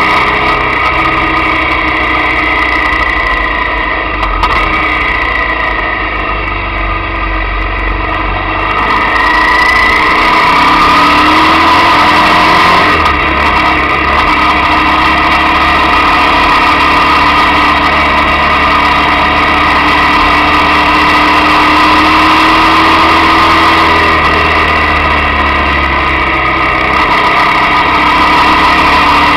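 Motorcycle engine running while riding, with the revs climbing about ten seconds in, then holding fairly steady.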